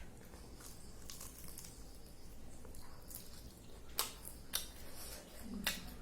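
Faint room tone with a few sharp clicks or taps, the clearest about four seconds in and again near the end.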